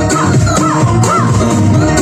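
Pop song music with a steady dance beat of about two beats a second under a bending melodic lead line.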